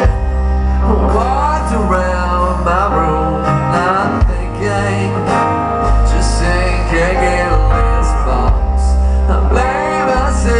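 Rock band playing live: guitars, bass and drums in an instrumental passage between sung lines.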